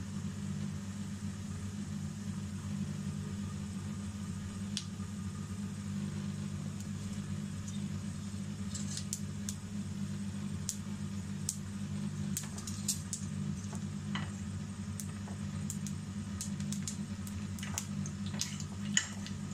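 Mustard, fennel and cumin seeds spluttering in hot oil in a frying pan: scattered sharp pops and crackles that grow more frequent after about eight seconds, over a steady low hum.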